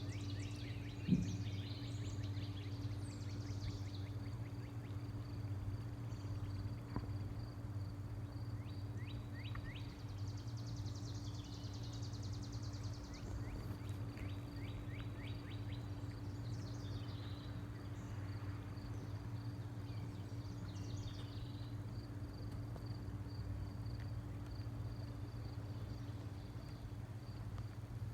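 Outdoor ambience: birds chirping now and then over a steady low hum, with one sharp click about a second in.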